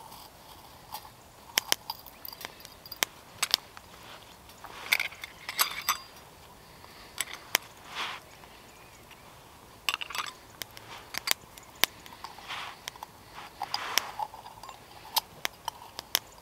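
Irregular sharp clinks and clicks of small metal and glass pieces being handled, with a few short rustles: a metal tea ball and a small glass jar of tea being opened, filled and closed.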